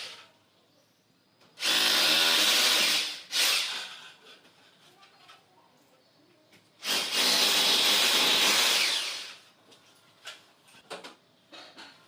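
Electric drill running in three bursts: one of about a second and a half, a short one, then one of about two seconds.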